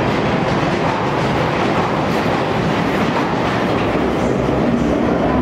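London Underground 1995 Stock tube train pulling out of the platform into the tunnel. Its wheels run on the rails with a loud, steady rumble that carries on after the train has left the platform.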